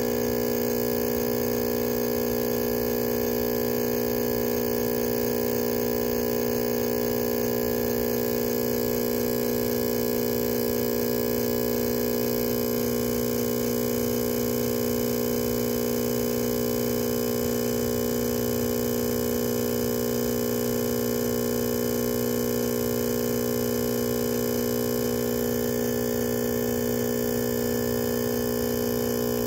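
A steady electrical hum made of several fixed tones.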